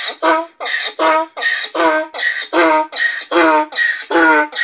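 Donkey braying: a long, loud run of rhythmic hee-haw calls, about two and a half a second, many sliding down in pitch.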